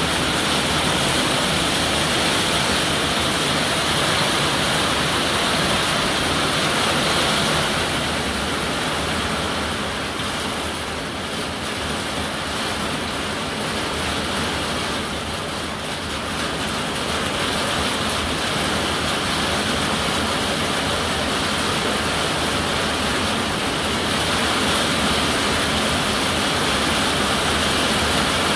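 Heavy rain pouring down steadily, falling on a metal carport roof overhead and splashing on the paved driveway. It eases slightly midway, then comes back up.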